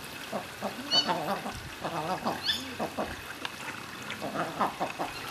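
King eider drakes calling in courtship display: many short rising-and-falling cooing calls, several birds overlapping. Two short high chirps come about one and two and a half seconds in.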